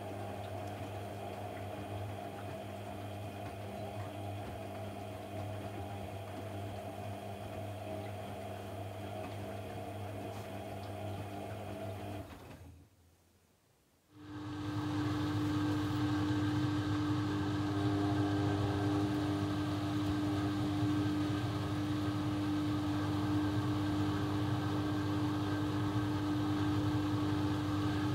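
Laundry machine motor running with a steady hum. About thirteen seconds in it cuts out to near silence for a second or so, then starts again louder with a steady, higher-pitched hum.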